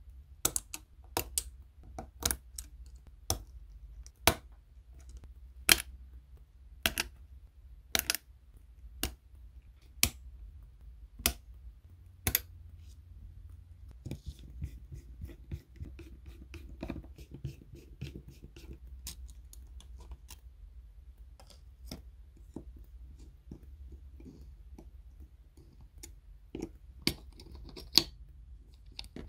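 Sharp clicks and taps of small repair tools on a smartphone's internal metal and plastic parts, about one a second for the first dozen seconds. Then a quieter scratchy stretch as a screwdriver turns out tiny screws from a metal camera bracket, and a few louder clicks near the end as the bracket is pried up with a steel spudger.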